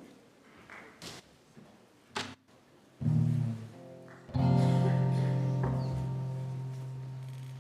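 The song's accompaniment begins on an instrument: a short chord about three seconds in, then a second chord just after that is left ringing and slowly fades. Before the chords come faint rustles and a single thump.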